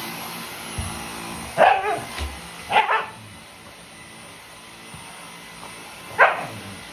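A Shiba Inu–Siberian Husky mix dog barking three times: two barks about a second apart, then a third a few seconds later, each bending in pitch. Under the barks a Dyson vacuum cleaner runs with a steady hum.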